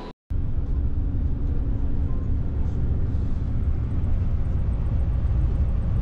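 Intercity coach on the road at speed: a steady low rumble of engine and tyres, starting just after a sudden cut.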